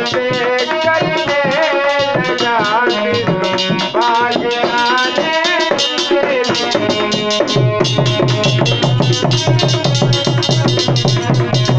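Music from a Hindi devotional bhajan: a wavering, ornamented melody over a hand-drum rhythm. About two-thirds of the way through, a heavier, denser drum beat takes over.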